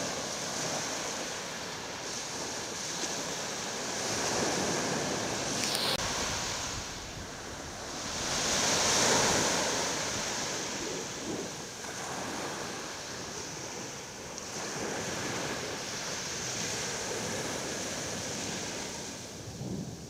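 Surf breaking and washing up a sandy beach, swelling louder twice, about four and nine seconds in, with wind on the microphone.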